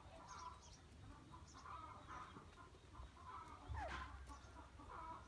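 Faint clucking of chickens, a short call repeated every second or so, with a few brief high chirps.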